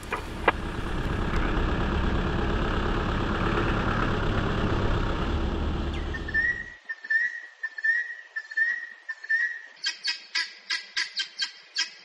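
A game-drive vehicle driving, a steady rumble of engine and wind noise, cut off abruptly after about six and a half seconds. Then comes a short high chirp repeated about twice a second, and from about ten seconds in a fast, high twittering.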